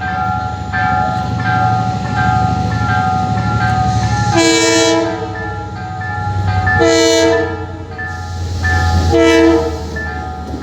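A train horn sounds three short two-tone blasts, about two and a half seconds apart, over the steady low rumble of the train.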